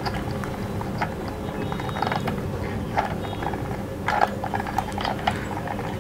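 Plastic handwheel of a battery-powered handheld stapler-style sewing machine turned slowly by hand, its gears and needle mechanism clicking irregularly, about once or twice a second, as the needle is raised.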